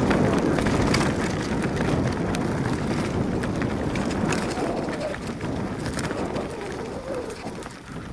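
Mountain bike rolling down a dirt forest flow trail: tyres rumbling over packed earth and twigs, with the bike rattling and clicking over bumps and a steady rush of air on the microphone. The rumble slowly eases toward the end.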